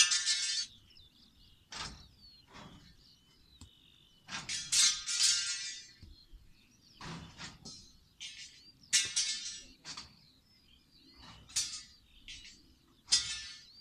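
Repeated bursts of wing clatter, each about a second long, as racing pigeons are let out of the transport truck's crates, with a few knocks from the crate doors. Small birds chirp faintly between the bursts.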